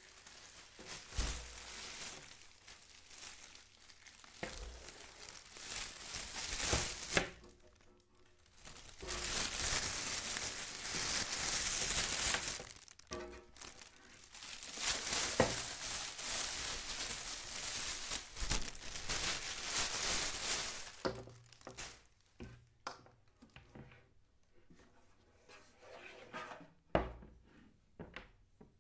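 Packaging crinkling and rustling as it is handled and pulled apart, with a few knocks. Near the end it turns to scattered taps and knocks of handling.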